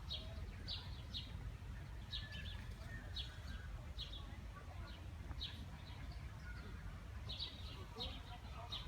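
Birds chirping: short, high chirps at irregular spacing, about one a second, over a steady low rumble.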